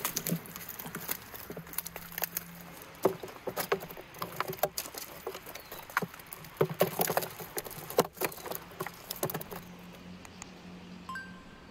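Live rainbow trout flopping in a plastic tub: a quick, irregular run of wet slaps and knocks against the tub's sides, dying away about nine seconds in.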